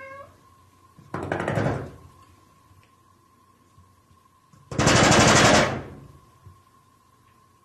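A glass-paned wooden sliding door rattling rapidly in its frame in two bursts of about a second each, the second louder, as a cat works at it.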